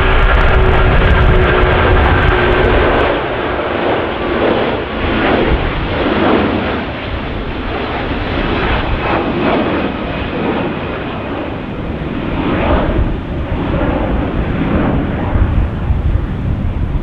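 Jet airliner taking off: a loud, rough engine roar with a steady whine that fades after about three seconds, the roar rising and falling as the aircraft climbs away. Wind buffets the microphone.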